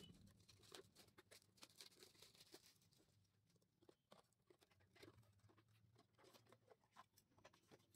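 Faint rustling, crinkling and small clicks of a CPU cooler's cardboard box and plastic packaging being handled and opened.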